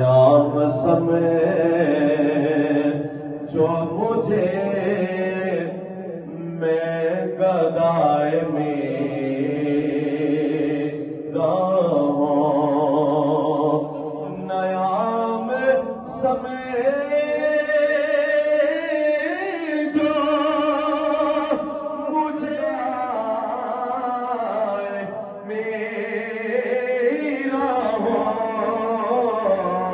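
A man's voice singing a devotional chant, unaccompanied, in long held melodic lines that glide slowly between notes.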